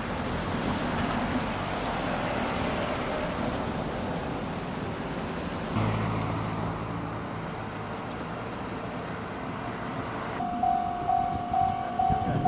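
Road traffic with vehicles passing and an engine running. In the last couple of seconds, a Japanese railway level-crossing warning bell starts ringing: one high electronic tone that repeats about two to three times a second.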